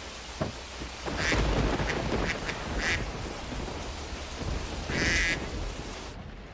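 Heavy rain pouring down over a car with a low rumble of thunder, while a duck quacks three times: a little after a second in, at about three seconds and at about five seconds. Near the end the rain hiss drops away.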